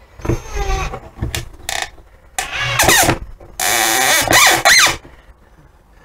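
Ryobi cordless drill/driver running in short bursts as it drives a screw into a board, with the screw squealing as it winds in. There are three bursts: a brief one at the start, one about two and a half seconds in, and a longer one from about three and a half to five seconds.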